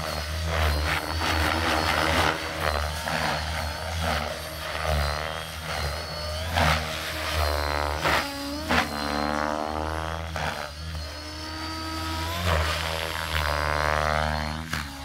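Align T-Rex 550 radio-controlled helicopter in flight: a steady low rotor drone under a whine that rises and falls in pitch several times as it swoops past.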